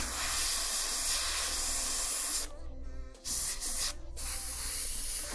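Airbrush spraying paint, a steady hiss of compressed air in three stretches: a long one of about two and a half seconds, then two shorter ones with brief breaks between.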